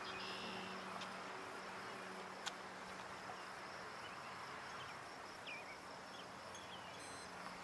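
Faint outdoor ambience of insects chirring steadily, under a faint low hum, with a single click about two and a half seconds in.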